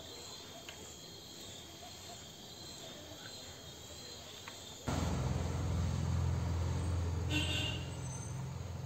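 Faint steady high-pitched insect drone with a couple of faint clicks. About five seconds in it gives way abruptly to a louder, steady low hum.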